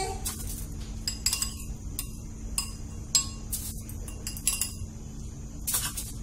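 Metal spoon clinking and scraping against a ceramic bowl while scooping out marinated chicken pieces: about a dozen irregular clinks, with a quick cluster near the end.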